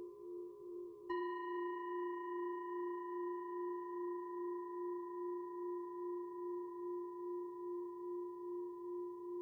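Singing bowl ringing with a slow, pulsing waver. About a second in, a new bowl tone is struck, with a sharp attack and several high overtones, and it rings on steadily.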